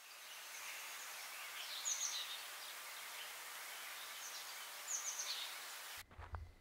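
Outdoor garden ambience: a steady hiss with birds chirping in two short bursts of quick falling chirps, about two and five seconds in. It cuts off suddenly near the end, followed by a few soft low thumps.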